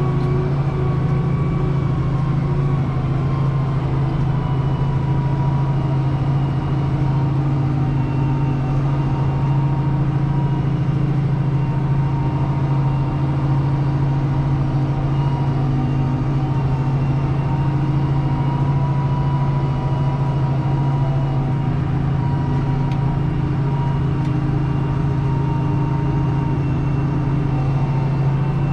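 Deutz-Fahr 6185 TTV tractor's six-cylinder diesel heard from inside the cab, running at a steady speed while pulling a slurry tanker. Its deep, even drone carries several steady whining tones above it.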